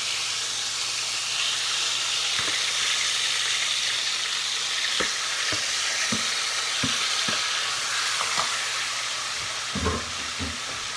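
Chicken frying in a skillet of bacon grease and butter: a steady sizzle with scattered sharp clicks, and a few soft knocks near the end.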